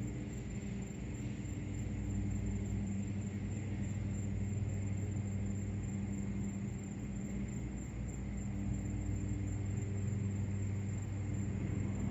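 A steady low droning rumble with several held low tones, unchanging throughout.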